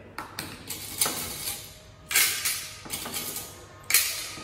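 Clam shells clattering as they are tipped and dropped into a blender jar: a run of sharp clinks and rattles, loudest about two seconds in and again near the end.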